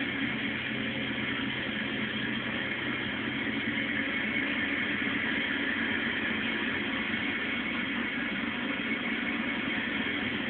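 A steady, unchanging noisy drone with a faint underlying hum, like a machine running continuously.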